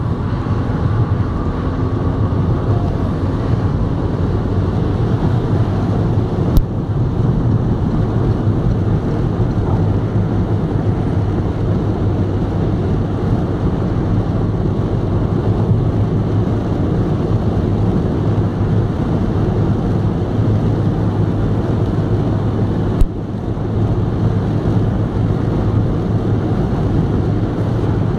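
Steady road noise inside a car cruising on a motorway: engine and tyre drone with wind. Two short sharp clicks stand out, some sixteen seconds apart.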